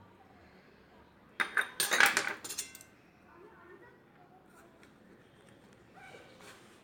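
Metal spoon clinking and scraping against a dish in a quick flurry of ringing clicks, about a second and a half in and lasting just over a second.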